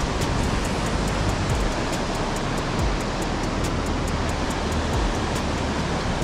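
Steady rush of river water flowing over the shallows below a weir, with low wind rumble on the microphone. Faint high ticks repeat about three or four times a second throughout.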